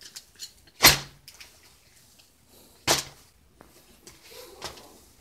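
Two short, sharp knocks about two seconds apart as the unboxed costume items and plastic mailer are handled, with faint rustling near the end.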